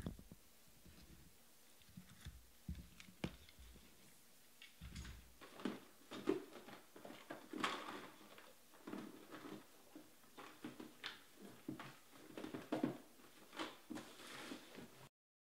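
Irregular handling noises: scattered clicks, taps and knocks with soft rustling, growing busier in the second half, then cutting off suddenly near the end.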